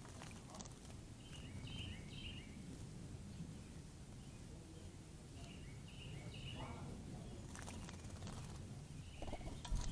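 Small songbirds chirping in three short bursts of quick, falling notes, over a steady low background rumble, with a brief knock near the end.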